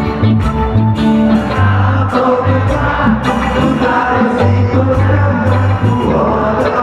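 Live reggae band playing loud through the PA: electric guitars, keyboard and drums over a repeating bass line.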